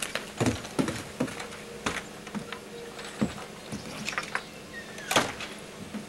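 A hut door opening and banging shut, with an irregular run of knocks and clatters as someone moves about in the doorway; the loudest bang comes about five seconds in.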